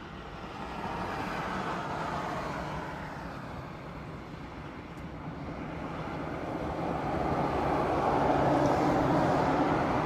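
Steady noise of passing motor traffic, growing louder in the second half.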